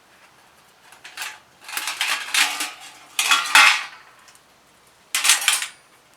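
Thin metal parts of a compact box-type fire stove clattering and clinking as they are handled, in several separate rattling bursts.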